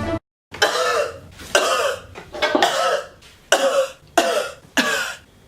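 A person giving a run of about six acted, voiced coughs, roughly one a second, after a short silence.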